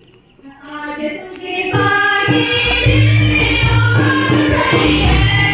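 A choir sings a hymn with instrumental backing and a steady bass beat. It fades in over a faint crowd murmur about a second in and is loud from about two seconds in.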